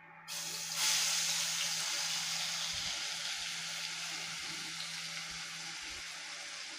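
Wet ground masala paste hitting hot oil in a pan and sizzling. It starts about a second in, then keeps frying with a steady hiss that slowly dies down.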